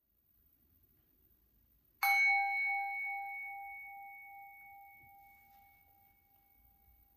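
Brass singing bowl struck once with a wooden striker about two seconds in, ringing with one clear tone and higher overtones that fade slowly over several seconds.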